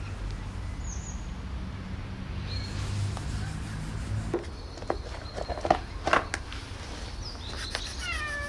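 A cat meows once near the end, a short call falling in pitch. Before it there is a low steady rumble that stops abruptly about halfway through, and a few sharp clicks and knocks.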